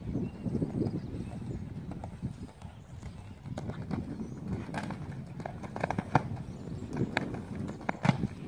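Hoofbeats of a horse cantering and jumping on an arena's sand footing, with a run of sharper clicks through the second half.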